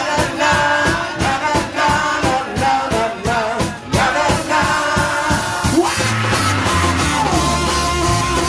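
Live soul band playing: trumpets and saxophone sound a horn line over a steady drum beat. About six seconds in the horns drop out and a bass and guitar groove takes over.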